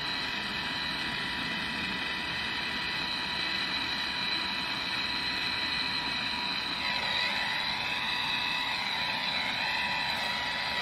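Propane torch (a MAP-gas torch head burning propane) running with a steady hiss and a few faint held whistling tones, as it heats an aluminum part so that the brazing rod melts and flows.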